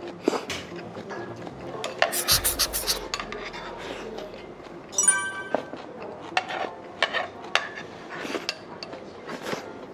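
Metal spoon and chopsticks clinking and scraping against ceramic dishes while eating, with a run of quick scrapes about two seconds in and one ringing clink about five seconds in.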